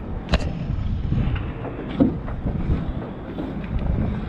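A crab-pot line being hauled in hand over hand over the side of a small aluminum boat, with wind rumbling on the microphone. A few sharp knocks sound through it, the loudest about two seconds in.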